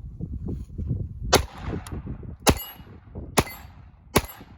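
Four unsuppressed .22 LR gunshots, sharp cracks roughly a second apart, each trailing off in a short echo.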